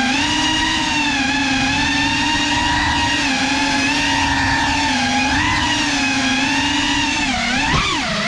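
Small drone's motors and propellers whining steadily, the pitch wavering up and down with the throttle. Near the end the pitch dips sharply with a short knock, then climbs back.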